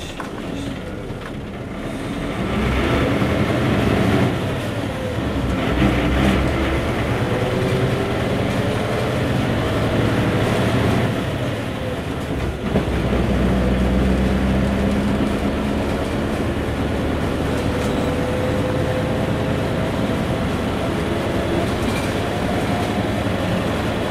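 Isuzu KC-LV380L route bus's V8 engine heard from inside the cabin: low idle at first, then pulling away and accelerating, the engine note rising and dropping back at each gear change, before settling into a steady run with slowly rising pitch.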